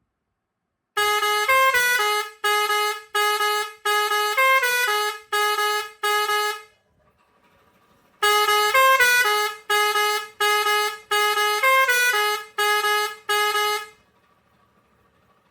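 Pioneairs 632S six-pipe steel-trumpet digital air horn playing a short tune as a string of loud blasts that step between notes. After a pause of about a second and a half, the same tune plays again.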